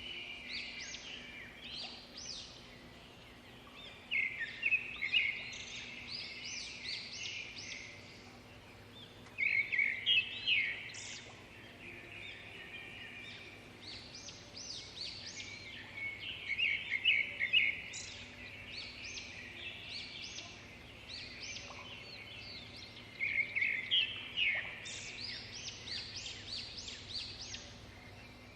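Birds chirping and singing in repeated bouts of quick high chirps, several loud bursts a few seconds apart, over a faint steady low hum.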